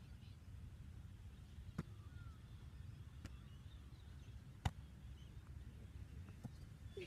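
A few sharp slaps of hands on a rubber ball as it is caught and thrown over the net, the loudest about two-thirds of the way in, over a low steady background rumble.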